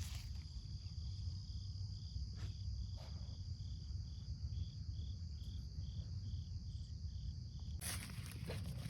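Insects calling, a cricket-like chorus: a steady high drone with an evenly pulsed chirp about two to three times a second. A steady low rumble runs underneath, and a burst of broad noise comes in near the end.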